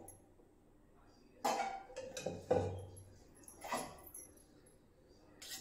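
Steel cookware clinking: a spoon knocking against a steel pot and plate while cooked jackfruit pieces are lifted out of dal, about five separate clinks with short ringing, starting about a second and a half in.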